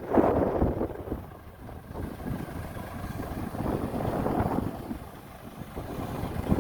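Heavy diesel earthmoving machinery running, its rumble rising and falling in surges, with wind noise on the microphone.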